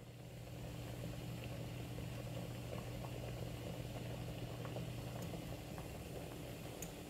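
A saucepan of rice and water at a rolling boil: steady bubbling that swells about a second in, over a low steady hum.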